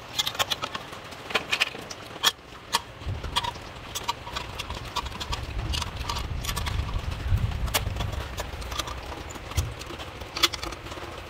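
Light metal clinks and taps as a sheet-metal air cleaner base plate and its fasteners are handled and fitted onto a mower engine. A low rumble runs under the clinks from about three seconds in until near the end.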